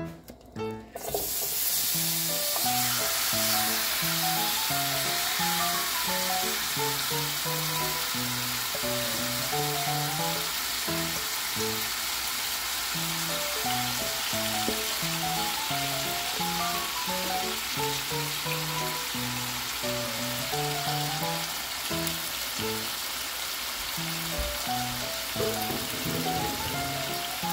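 Marinated chicken pieces with onion and garlic sizzling in hot oil in a frying pan. The sizzle starts suddenly about a second in as the chicken hits the pan, then carries on steadily, easing slightly. Light background music with picked melodic notes plays throughout.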